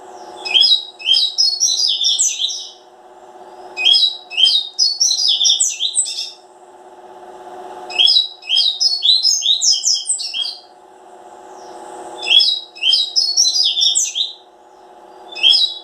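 A double-collared seedeater (coleiro) sings its fast, twittering song in repeated phrases of about two and a half seconds, one every four seconds or so. There are four phrases, with a fifth starting at the very end. A steady low hum runs underneath.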